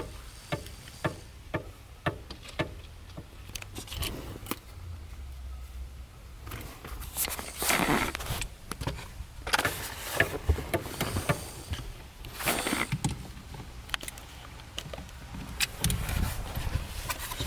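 Small metal parts and screws being handled: light clicks and metallic rattling, with a few louder clattering bursts, while the steering wheel hub is fitted.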